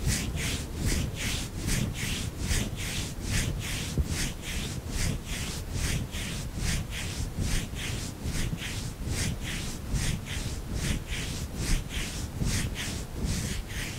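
A hand massaging the nape of the neck in diagonal strokes: a rhythmic swishing rub, about three strokes a second.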